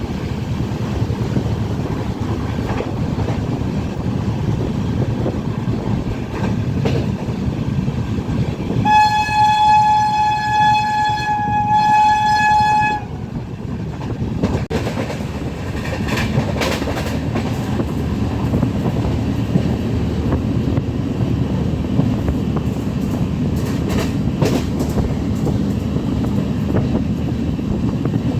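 Passenger train running on the rails, heard from aboard, a steady rumble with scattered clicks of the wheels over the rail joints. About nine seconds in, a train horn sounds one long note for about four seconds, dipping slightly in pitch just before it stops.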